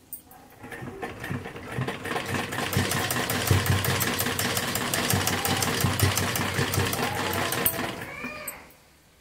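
Domestic sewing machine stitching lace onto fabric: it picks up speed over the first couple of seconds, runs steadily with rapid needle ticking, then slows and stops near the end.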